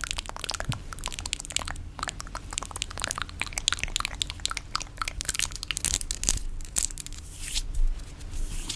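Fingernails tapping rapidly on a coconut shell: a dense, uneven patter of sharp clicks like rain, with a few short scratching strokes.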